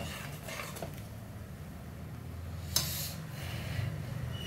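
A metal spoon clinks lightly against the steel pressure cooker holding simmering coconut milk, with one sharp clink about three seconds in, over a low steady hum.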